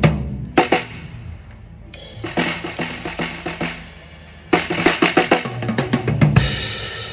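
Drum kit being tried out during a sound check: scattered kick, snare and tom hits with ringing low drums, then a fast run of strokes about four and a half seconds in, ending with a cymbal fading away.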